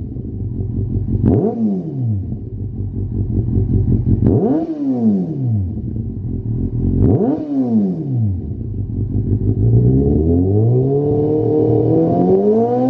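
Kawasaki Z800's inline-four engine revving through a Lextek RP1 aftermarket silencer while the bike stands still: three quick throttle blips, each rising sharply and falling back to idle, then a longer rev that climbs slowly and is held high near the end.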